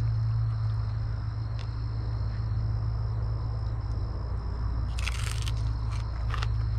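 Crunching bites of crispy fried fish, with a burst of crunching about five seconds in and a shorter one near the end. Under it runs a steady low hum and a steady high insect drone.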